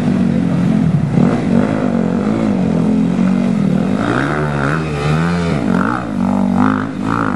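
Several off-road motorcycle engines revving hard and unevenly as the bikes push through a rocky stream. The pitch swoops up and down repeatedly, most sharply around the middle.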